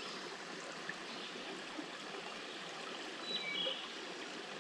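Small mountain creek running over rocks: a steady rush of flowing water, with a brief high tone about three seconds in.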